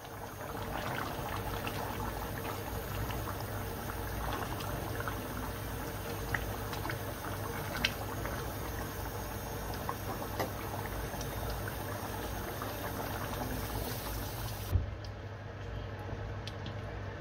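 A pot of liquid bubbling on the stove at a steady simmer, with a few brief sharper pops.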